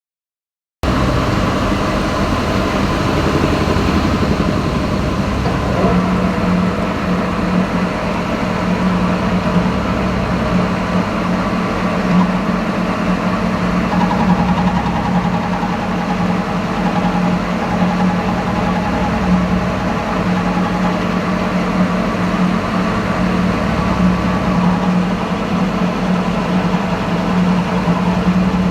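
CNC lathe running, a steady machine hum with a strong low tone that firms up about six seconds in.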